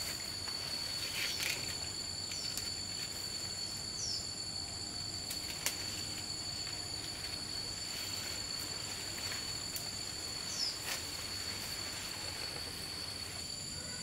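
Insects droning steadily in a high, constant pitch, with a few short falling chirps and a sharp click or two from the tree.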